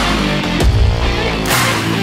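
Loud rock music with guitar over a heavy beat.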